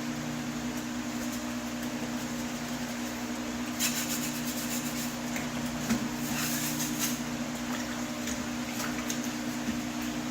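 A steady low mechanical hum, with short bursts of scraping and clicking about four seconds in and again around six to seven seconds.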